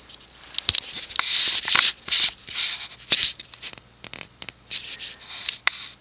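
Irregular scratchy rustling and scraping with scattered sharp clicks, the handling noise of a camera being moved and refocused close to its microphone. A faint steady low hum lies underneath.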